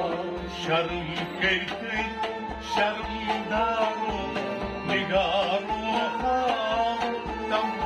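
Harmonium chords held under a man's ornamented, wavering solo singing of a Kashmiri kalam, over a steady low beat of about two pulses a second.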